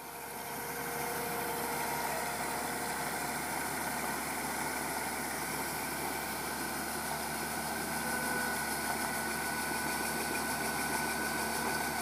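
Combine harvester running steadily while unloading grain through its auger spout: an even mechanical din from the engine and threshing machinery, with a faint steady whine. It fades in over the first second.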